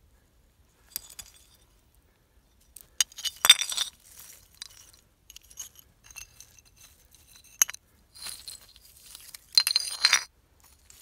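Broken pottery shards clinking against each other as they are moved about in the dirt: scattered sharp clinks with a bright ring, loudest a few seconds in and again near the end.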